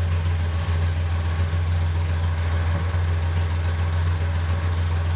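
Datsun 240Z's 2.4-litre L24 inline-six idling steadily, a low even hum without misses or pops.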